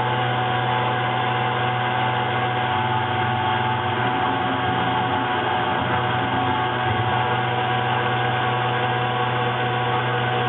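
Taig CNC mill running: the spindle motor turning a 45-degree, four-flute end mill while the stepper motors drive the table across an aluminum plate. A steady mechanical hum with several held tones, unchanging throughout.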